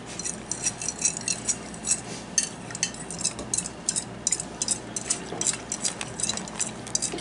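Spoon stirring cornstarch and water into a slurry in a ceramic bowl: quick, irregular clinks and scrapes of the spoon against the bowl, a few a second, which stop abruptly at the end.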